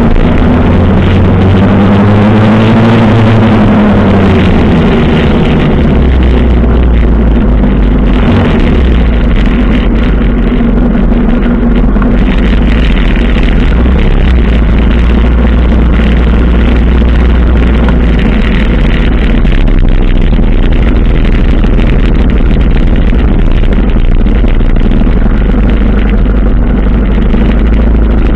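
A 1985 Suzuki GS 700 ES motorcycle's inline-four engine running at low speed in slow traffic, amid other motorcycles. Its revs rise and fall once a few seconds in, then hold steady.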